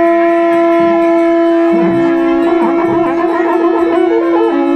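Traditional wind-instrument music. One instrument holds a single steady note from the start, while a reedy pipe plays a wavering melody above it.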